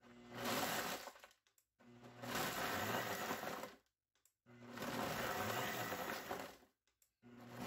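Electric blender pulsed in short bursts, about four times, grinding granola and shortbread cookies into crumbs, the motor spinning up with each pulse.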